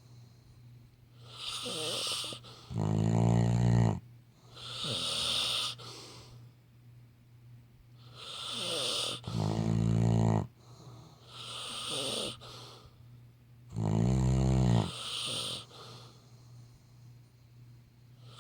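Labrador retriever snoring in its sleep: slow breaths every few seconds, three of them with a loud, deep snore.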